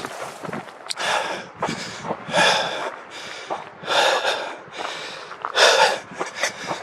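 A man breathing heavily and out of breath from the exertion of a steep hike. His loudest breaths come about every second and a half, with weaker ones between, close to the microphone.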